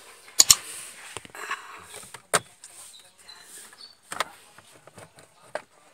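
Plastic dashboard trim panel being worked loose by hand, with a few sharp plastic clicks and knocks and light scraping and rustling between them.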